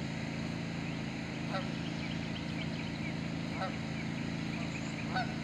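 Geese honking across the water, three short separate honks about two seconds apart, over a steady low drone.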